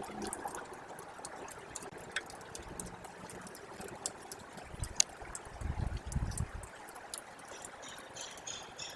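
Thawing snow's meltwater trickling and dripping, with many scattered sharp drip ticks. A low rumble comes about five and a half seconds in, and a few short high chirps near the end.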